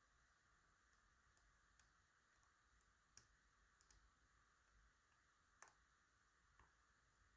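Faint, scattered clicks of a hook pick working the pins inside a DOM ix Twinstar high-security lock: a handful of small ticks a second or so apart, the loudest a little past halfway, over a faint steady hiss.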